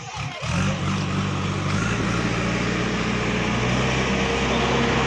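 A motor vehicle engine running steadily, starting about half a second in, with a higher steady whine joining around the middle.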